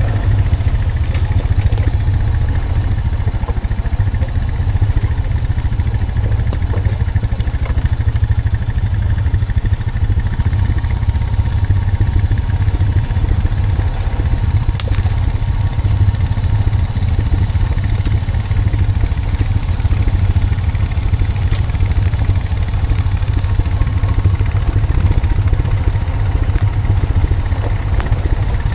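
Honda Foreman 520 ATV's single-cylinder engine running steadily, with a few light clicks and clatter scattered through.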